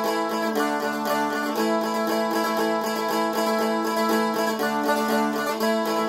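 Seagull Merlin M4, a four-string dulcimer-style strumstick, strummed in a fast, even rhythm. A steady low note rings underneath while the chords change a few times.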